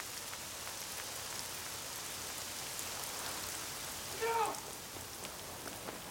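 Steady rain falling, with individual drops ticking close by. A short voice-like cry cuts in about four seconds in.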